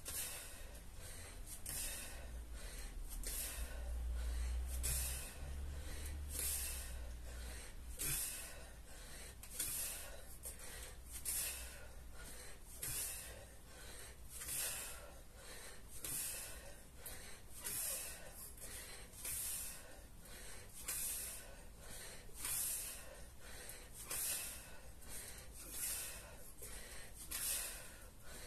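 A man breathing hard and rhythmically from kettlebell swing exertion, a loud breath about every second and a half.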